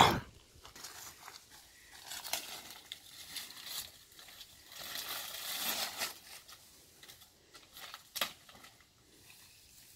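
Irregular rustling and crinkling of leaves and stems as bean plants are handled while being tied up, with a short sharp click a little after eight seconds in.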